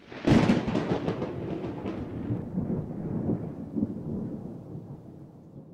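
Logo sting sound effect: a sudden crack followed by a thunder-like rumble that slowly fades over about five seconds.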